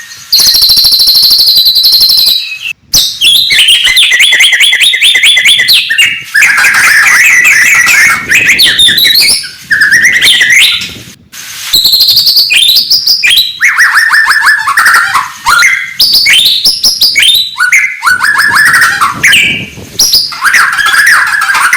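White-rumped shama (murai batu) singing loudly and continuously. Its phrases are fast runs of rapidly repeated whistled notes and trills that change every second or two, with only brief breaks.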